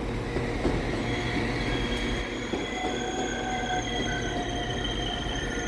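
Northern CAF Civity multiple unit moving slowly on curved track, its wheels squealing in several steady high-pitched tones over a low, continuous rumble from the train.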